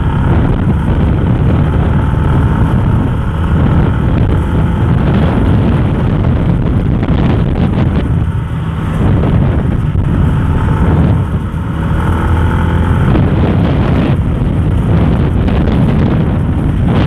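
Yamaha Sniper 150 motorcycle running steadily on the road, with heavy wind noise on the microphone; the level dips briefly twice midway.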